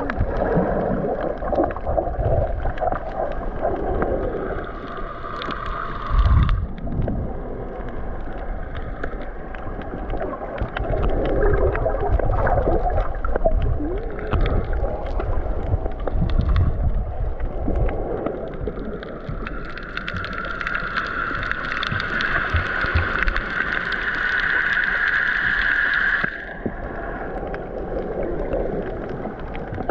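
Underwater ambience picked up by a snorkeler's camera: low rumbling and sloshing of moving water. A steady higher hum comes in for several seconds near the end and cuts off suddenly.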